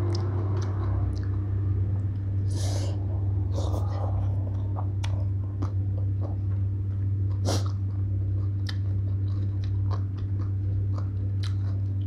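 A person eating papaya salad and rice noodles by hand, with close-up wet chewing and many small mouth clicks and lip smacks. Two short noisy breaths come about 3 and 7 seconds in. A steady low hum runs underneath throughout.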